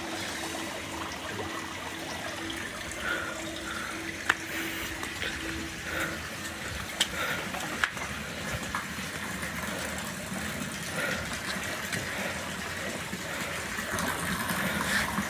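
Running water: a steady rushing hiss, with a faint low hum that stops about halfway and a few sharp clicks near the middle.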